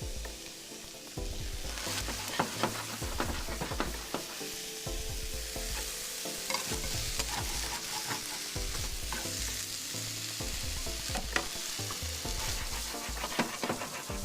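Chopped onion and vegetables sizzling in a hot frying pan, stirred with a utensil that scrapes and clicks against the pan.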